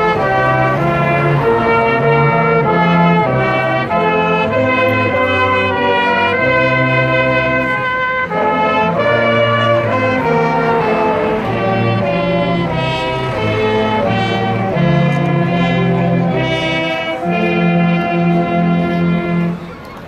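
Brass band playing a tune outdoors in full chords, with trumpets and trombones; the music stops shortly before the end.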